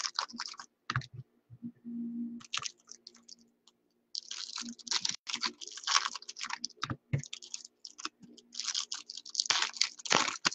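Crinkling and crackling of foil trading-card pack wrappers being torn open and cards being handled, in irregular bursts with a short pause about three seconds in.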